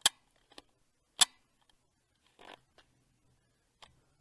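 A cat eating canned food from a plate: a few sharp clicks and taps. The two loudest come about a second apart near the start, and softer ticks and a brief scrape follow.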